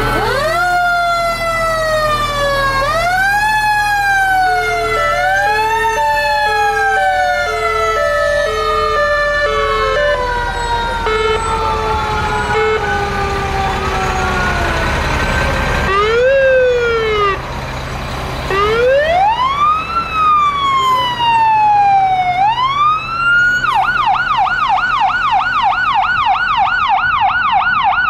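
Sirens of fire trucks passing one after another: several wails rise and fall and overlap, with a two-note hi-lo tone in the first half. Near the end one siren switches to a fast yelp, over the low run of the truck engines.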